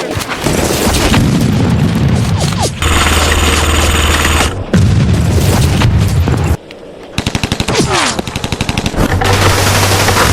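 Airsoft guns firing rapid automatic bursts, heard as fast evenly spaced clicks, in abruptly cut loud stretches with deep booming low notes under them.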